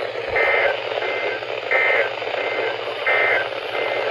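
NOAA Weather Radio SAME end-of-message code: three short two-tone digital data bursts about 1.4 s apart, over steady receiver static. It signals the end of the weekly test broadcast.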